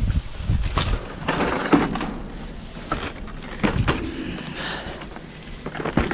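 Rummaging in a metal dumpster: rustling plastic and cardboard with several knocks and scrapes as a board of decorative mirrors is dragged out over the dumpster's edge.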